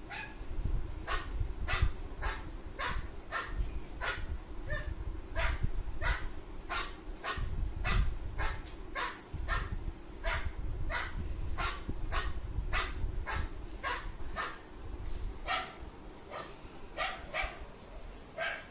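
A dog barking over and over, about two barks a second, played from a video through a phone speaker.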